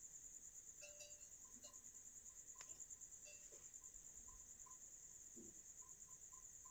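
Near silence: room tone with a faint steady high-pitched whine and a few soft clicks.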